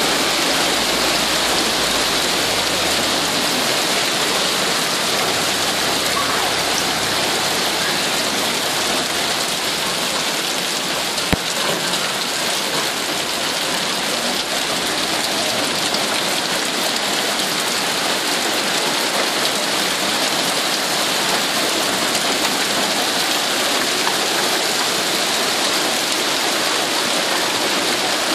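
Heavy hail mixed with rain pelting a paved street: a dense, steady hiss of countless small impacts. One sharp knock stands out about eleven seconds in.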